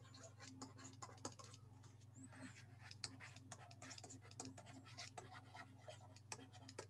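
Faint, irregular tapping and scratching of a stylus on a drawing tablet as words are handwritten, over a low steady hum.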